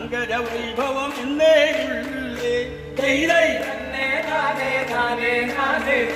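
Background music: a song with singing over a steady percussion beat, with a new sung phrase starting about halfway through.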